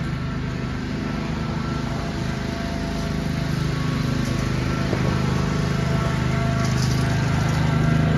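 Riding lawn tractor's engine running steadily at working speed while towing a dethatcher, growing a little louder toward the end.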